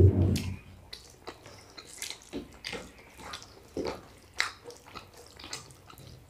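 Eating sounds: fingers squishing and mixing rice with curry on plates, and mouths chewing. The result is scattered short, wet clicks and smacks, a little louder about four seconds in.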